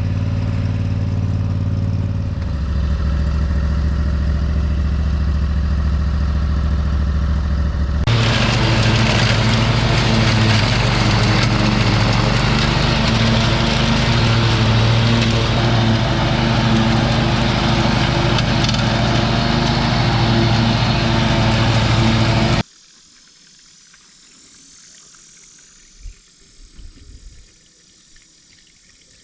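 An engine running steadily: its pitch drops about two seconds in, then from about eight seconds it runs louder with a rougher, noisier sound, and cuts off abruptly about three-quarters of the way through, leaving only faint background.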